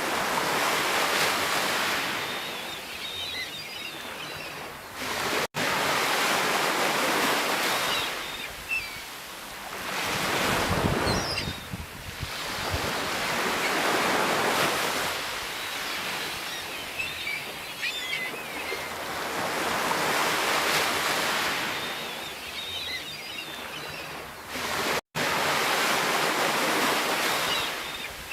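Sea waves breaking and washing ashore, swelling and fading about every four seconds. The sound cuts out for an instant twice.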